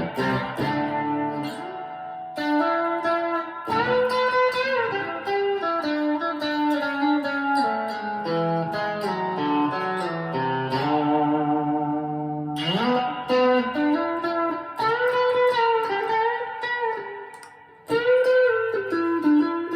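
Squier Classic Vibe Telecaster electric guitar played on its bridge pickup, a little out of tune: strummed chords and single-note lead phrases with string bends. The playing fades briefly near the end, then a new phrase starts with a bend.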